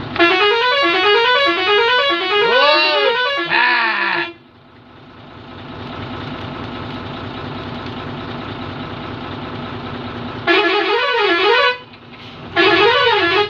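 A vehicle's musical horn plays quick repeating runs of rising notes with swooping glides for about four seconds. A steady background rumble follows. Near the end come two short warbling horn blasts.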